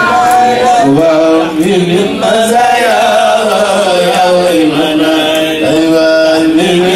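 Men's voices chanting a Sufi devotional litany, the melody drawn out in long held notes that slide up and down without a break.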